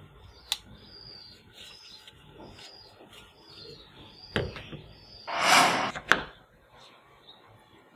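Plastic toy gun parts handled on a cardboard surface: a sharp click, a knock as a toy scope is set down, then a short scraping rub about five seconds in, followed by another click. Faint high chirps repeat in the background.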